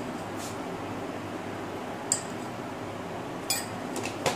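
Kitchenware clinking a few times, four light sharp knocks spread over the few seconds, over a steady hiss from the stove and the pot of broth cooking on it.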